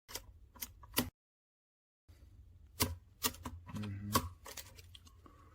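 Small metallic clicks and scrapes of a thin lock pick working the pins of a five-pin cylinder lock: a few sharp ticks in the first second, then a denser cluster about three to four and a half seconds in.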